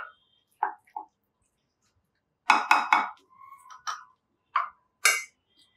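Short knocks and clinks against a glass oven-proof dish as food is placed into it. Three louder knocks come in quick succession about two and a half seconds in, followed by a brief ring of the glass.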